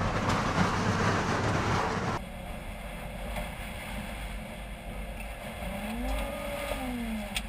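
Loud roar of tornado wind and rain battering the TIV2 armored intercept vehicle. It cuts off abruptly about two seconds in to a quieter steady noise inside the cabin. Near the end comes a brief rising-and-falling tone, then a sharp click.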